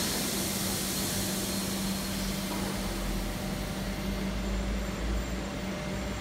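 Steady factory-hall background noise: a constant low hum with an even hiss over it and no distinct events.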